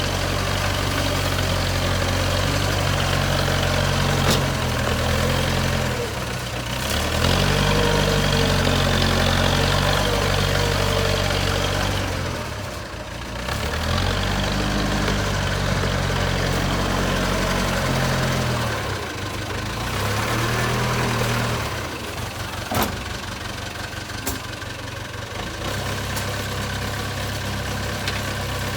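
JCB 3CX backhoe loader's diesel engine running as it works, its speed and load rising and falling several times, with a couple of short knocks.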